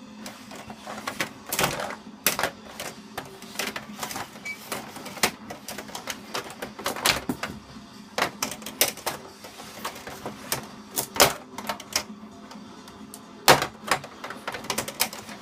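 Small toy fighting robots clattering and knocking against each other in a melee: irregular sharp clicks and bangs, the loudest about a second and a half in, near the middle and about thirteen and a half seconds in.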